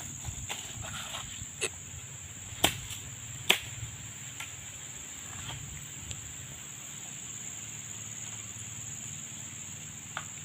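Steady high-pitched insect drone from the plantation. A few sharp knocks break over it, two of them loud a few seconds in.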